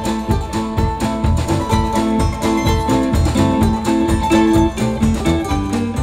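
Live folk band playing an instrumental passage: guitars plucked and strummed over a steady beat, with notes changing every fraction of a second.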